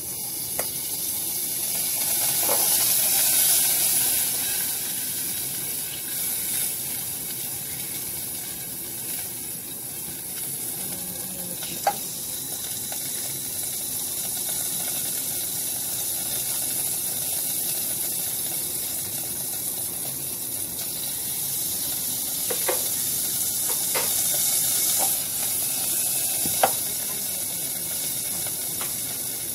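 Steady sizzling hiss from a hot steel pot on the stove as it steams, swelling at the start and again near the end, with a couple of sharp clicks.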